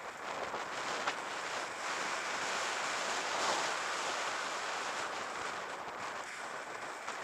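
Wind rushing over the microphone of a camera on a road bike moving at speed, a steady rush that grows a little louder about three seconds in, with one short click about a second in.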